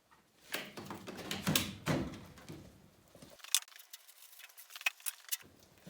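Handling noises: rustling for a couple of seconds, then a few separate sharp clicks.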